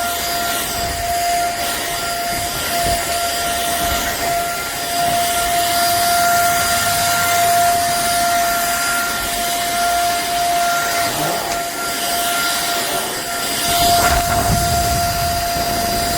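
Vytronix HSV3 corded stick vacuum's motor running steadily: a constant high whine over an even hiss.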